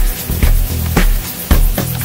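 Background music with a steady beat: a heavy kick drum about twice a second over a deep bass line.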